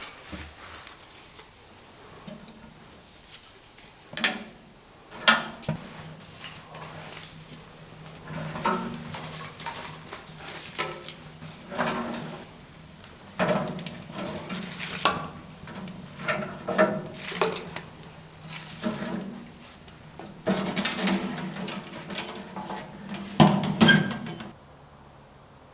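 Irregular knocking and clattering of hard objects being handled, with a few sharper knocks.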